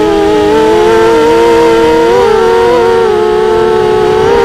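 Racing quadcopter's brushless motors and 5-inch propellers whining at speed, heard from on board the craft. Several close pitches run together and waver slightly up and down.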